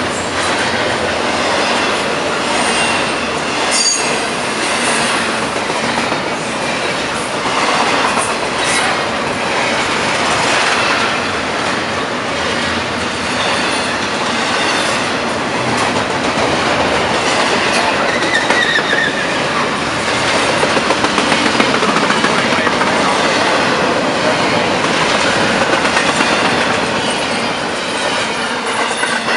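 Freight train of double-stack container well cars rolling past at speed: a steady, loud rush of wheels on rail, with repeated clicks as the wheels cross rail joints and a faint high wheel squeal now and then.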